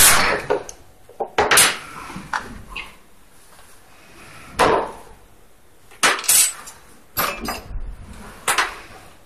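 A short, loud burst from a cordless drill driving a screw into the chair frame right at the start, followed by about seven separate knocks and clanks, irregularly spaced, as the metal and plastic parts of a theater chair are handled and fitted together.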